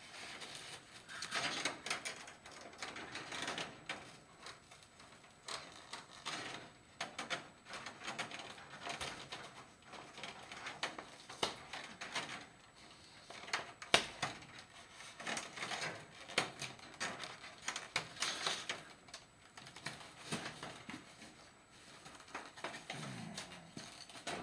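Chicken wire being pulled, bent and pressed into shape by hand: irregular rustling and scraping with light metallic clicks, and one sharper click about halfway through.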